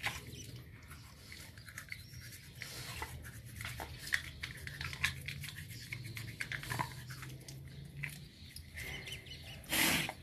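Toothbrush bristles scrubbing a Rottweiler's teeth: a run of scratchy brushing strokes and small clicks, with a short louder rush of noise near the end.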